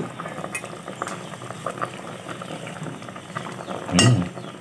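Ladle stirring moringa leaves into a pot of simmering soup, with light scraping and small clinks against the metal pot. A louder sound comes about four seconds in.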